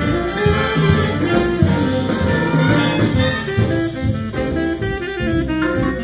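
Big band jazz instrumental break with brass and saxophones, played back through a pair of Klipsch RP-600M bookshelf speakers and picked up by a microphone in the room.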